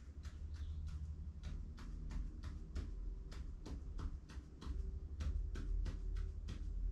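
An ink pen scratching short tally strokes onto paper, a quick even run of about three to four strokes a second, over a low steady hum.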